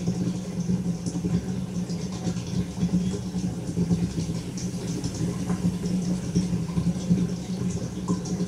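Steady low mechanical hum with a faint rattle.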